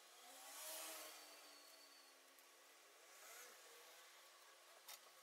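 Near silence with faint handling noise from work on a laptop LCD panel: a soft rustle about a second in, a weaker one around three seconds, and a light click near the end, over low room hum.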